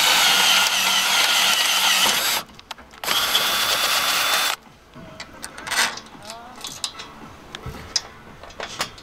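Power drill with a twist bit drilling a hole through a solar-panel mounting clip into the metal roof rack. It runs for about two seconds, stops briefly, then runs about another second and a half. A few light clicks follow.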